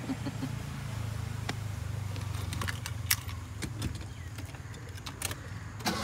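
Scattered light clicks and small rattles from a newly fitted aftermarket steering wheel and quick release being handled in a car, over a low steady hum.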